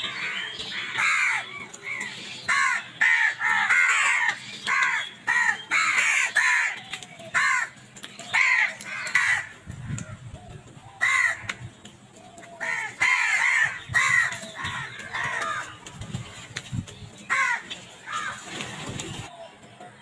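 A flock of house crows cawing: many short, harsh caws in quick runs, several birds calling over one another, with a couple of brief lulls.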